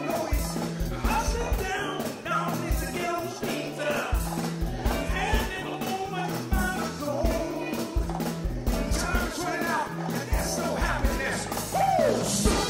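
Live soul band playing: a repeating bass line and drum kit, with a melody line gliding over them.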